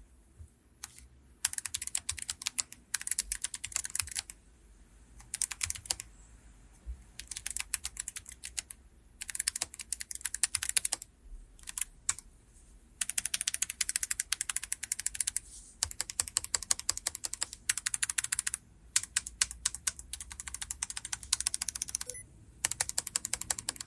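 Typing sound test on a stock Rakk Pirah Plus gasket-mount mechanical keyboard with red switches: quick runs of key clicks lasting a second or three, broken by short pauses.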